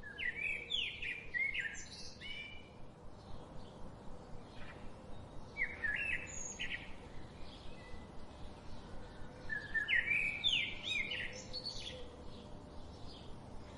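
Birds singing in phrases of quick rising chirps, three main bursts of song a few seconds apart, over a steady hiss of background noise.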